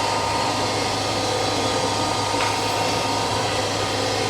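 Forge-shop machinery running steadily: a constant rushing hum with a low drone and a few steady tones, with no hammer blows.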